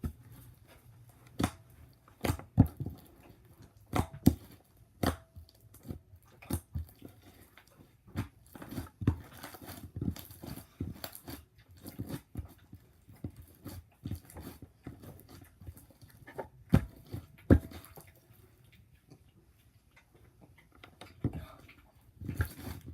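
Slime being squished and poked by hand, giving irregular sticky clicks and pops with short pauses between them.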